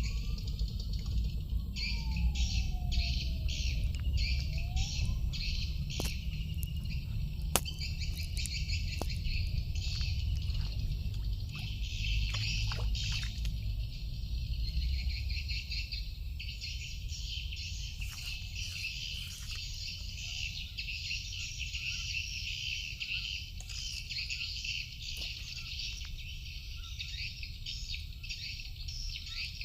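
Dense chorus of insects chirping in a fast, even pulse, over a steady low rumble. A faint whistle glides up and down several times in the first few seconds, and there are scattered sharp clicks.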